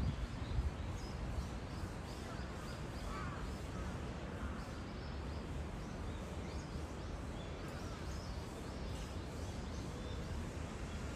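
Steady outdoor background noise with a low rumble, and faint bird calls scattered through it.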